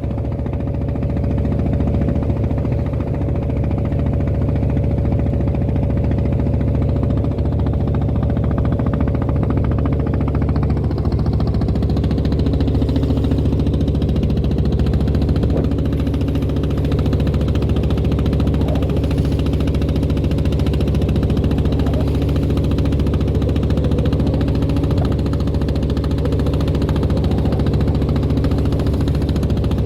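Klotok wooden motorboat's diesel engine running steadily under way; its note changes slightly about eleven seconds in.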